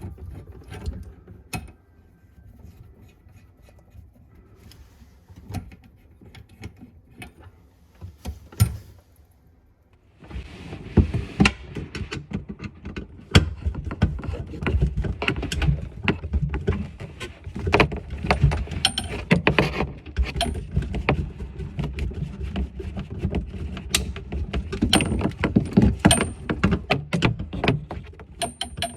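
Hand-tool work on a washbasin faucet and its fittings: scattered metallic clicks and knocks at first, then from about ten seconds in a busy stretch of clattering, rattling and knocking over a low rumble.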